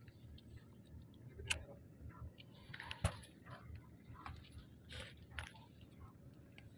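Faint scattered clicks and rustles of a cigarette pack being handled, with one sharper click about three seconds in, over a low steady murmur.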